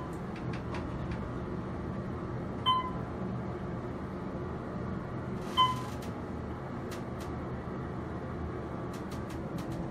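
A steady low hum with a short, high beep repeating about every three seconds, three times in all.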